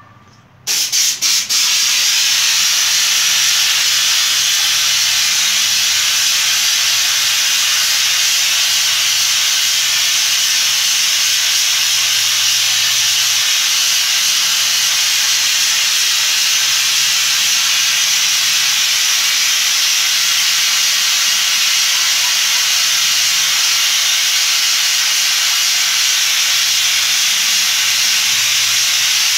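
Hand-held spray gun fed by air through a hose, hissing steadily as it sprays a chrome coating onto a wine glass. It starts with a few short spurts about a second in, then sprays without a break.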